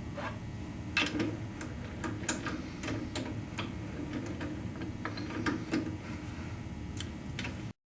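Shop machine tool running with a steady low hum, with irregular sharp ticks and clicks over it, a few to several a second. The sound cuts off abruptly near the end.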